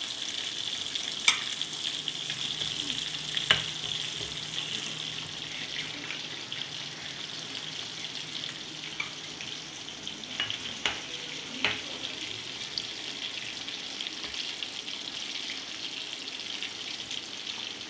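Breaded chicken pieces deep-frying in hot sunflower oil in a kadai, a steady sizzle as the golden-brown pieces are lifted out. A few sharp metal clinks come from the slotted spoon.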